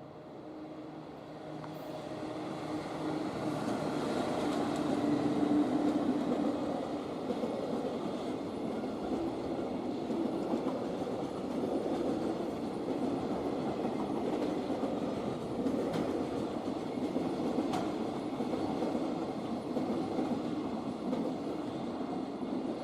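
A train approaching and passing close by, its wheels clacking over the rail joints. The sound builds over the first few seconds and then holds steady and loud.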